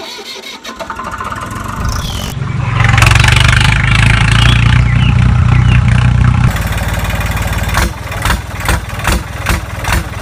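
Diesel tractor engine sound laid over the scene: it builds up, runs loud and steady for a few seconds, then drops to a quieter, uneven chugging about two thirds of the way through.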